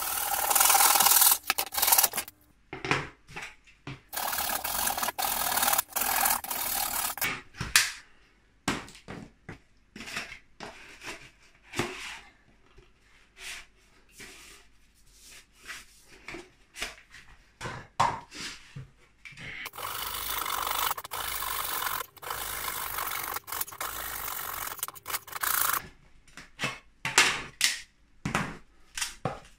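Handsaw cutting through a PVC sewer-pipe fitting: three stretches of rasping saw strokes, one at the start, one a few seconds in and one about two-thirds of the way through. Between them come scattered clicks and knocks of the plastic pipe pieces being handled and pushed together.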